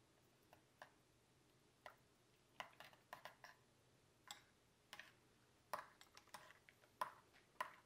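Metal spoon clinking and scraping against a ceramic bowl while stirring a creamy mixture: irregular light clicks, a few at first, then more frequent from about a third of the way in.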